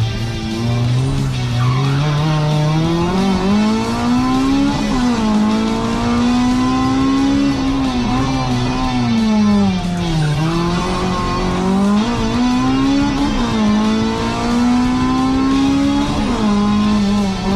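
Honda Civic EK's B16 four-cylinder engine heard from inside the cabin, driven hard on a slalom course: the revs climb in long pulls and drop sharply about 4, 10 and 16 seconds in as the driver brakes and shifts for the chicanes.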